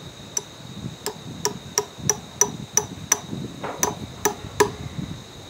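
Claw hammer tapping a metal probe into a log, about three light strikes a second with a brief pause a little past the middle; each strike rings with a short metallic tone. The probe is being driven in to seat it for a resistance moisture reading.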